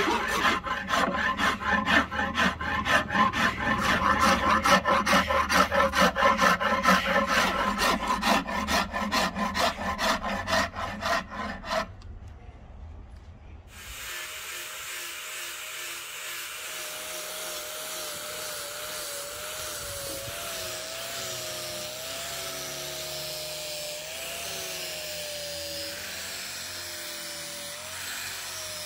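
A steel hand file rasping across a hard ebony handle in rapid, even strokes. They stop about twelve seconds in. After a short pause an electric disc sander runs steadily against the wood, its motor hum wavering in pitch as the load changes.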